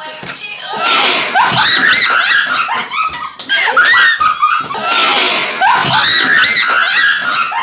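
Several girls shrieking and laughing loudly at once, in high-pitched overlapping bursts.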